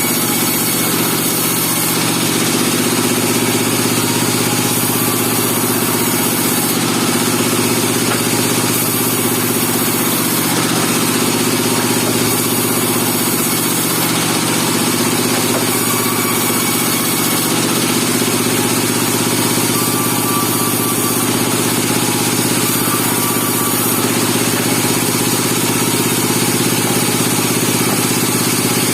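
Engine of a bandsaw sawmill running steadily at an even speed.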